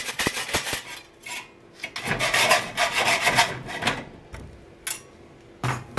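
Hacksaw cutting through a double-walled stainless steel bottle in a vise: a run of rasping strokes, a pause, then a faster, louder run about two to four seconds in. The sawing then stops, leaving a few short clicks, as the cut comes through.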